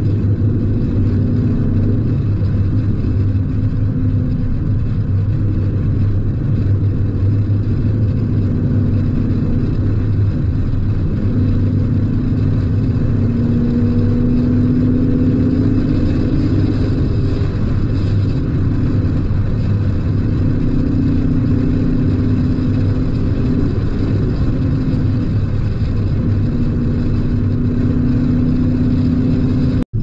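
Ford Mustang GT convertible's V8 engine and exhaust running at a steady cruise, the note rising and falling gently with the throttle.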